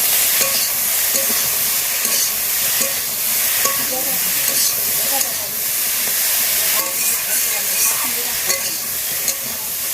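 Food frying in hot oil in a pan: a steady sizzle with small crackles and pops.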